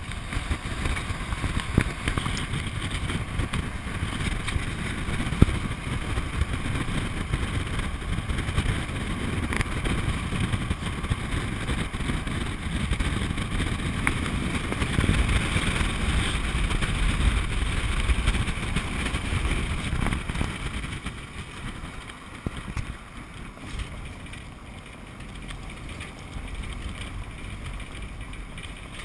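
Road and wind noise from a moving vehicle, with a steady rumble of driving. It turns quieter about two thirds of the way through, with a few faint knocks along the way.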